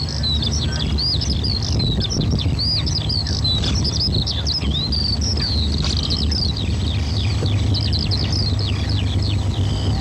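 Many birds chirping at once, a dense stream of short, overlapping falling calls, over a steady low hum.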